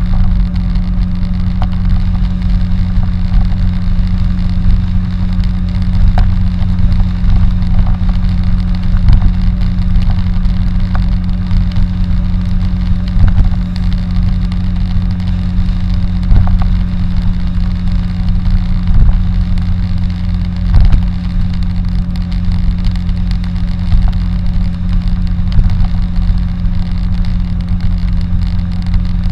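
Car driving at highway speed: a steady, loud low drone of engine and tyre noise with a constant hum, broken by scattered short knocks.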